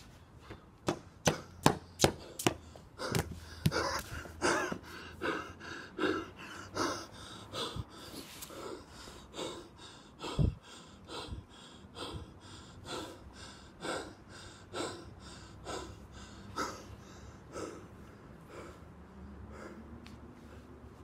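A person panting hard, breaths coming about once a second, slowing and growing fainter until they die away near the end. It opens with a quick run of five sharp, loud sounds in the first couple of seconds.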